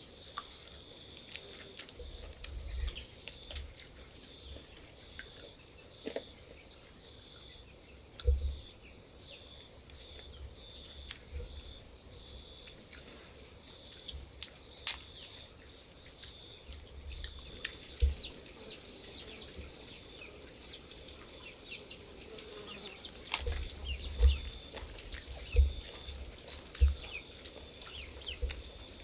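Forest insects keep up a steady high drone with pulsing, chirping layers underneath. A few dull low thumps break in, clustered near the end.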